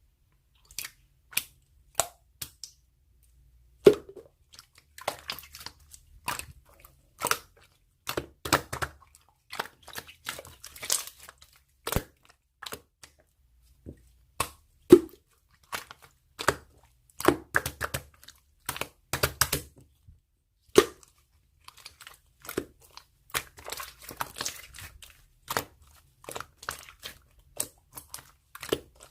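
Irregular clicks and taps with some crinkling and rustling, as of small objects being handled close to the microphone.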